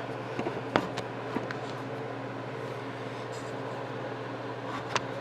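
Steady low hum with a few light clicks and taps, the sharpest about a second in and another near the end.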